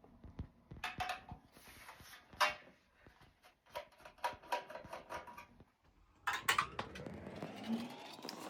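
Screws being undone from the metal cover of a Hilook 4-channel DVR: scattered small clicks and taps of the screwdriver and handling, with a louder scrape about six seconds in.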